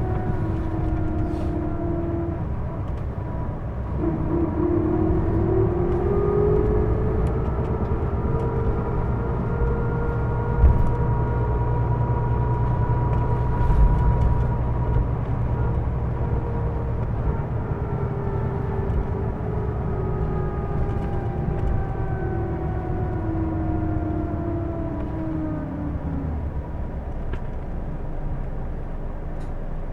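Hino Blue Ribbon II bus heard from inside the cabin on the move: diesel engine rumble with the bus's unusual whining noise. The whine falls, drops sharply about four seconds in at a gear change, climbs and holds as the bus pulls away, then falls steadily as it slows near the end, with two short thumps in the middle.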